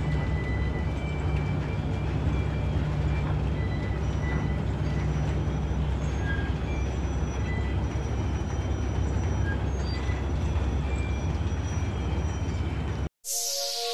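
Bucket-wheel excavator working: a steady, dense mechanical rumble with a low hum, and short high metallic squeals coming and going throughout. About a second before the end it cuts off abruptly, and a falling whoosh with sustained electronic tones begins.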